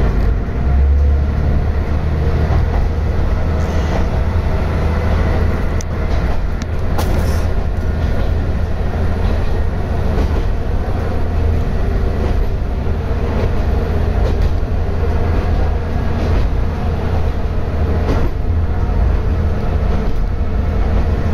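Diesel railcar of the non-electrified Kanto Railway Ryugasaki Line running along the line, heard from inside at the front of the car: a steady low engine drone mixed with wheel and rail noise, with a few faint clicks.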